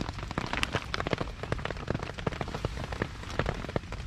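Heavy rain falling, with dense, irregular drops tapping close by on a surface.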